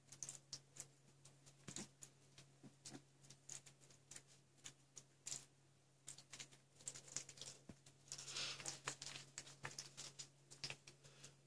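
Faint scattered ticks and soft rustles, with a denser stretch of rustling about eight seconds in: newborn puppies stirring and snuffling in their sleep on a fleece bed, over a faint low hum.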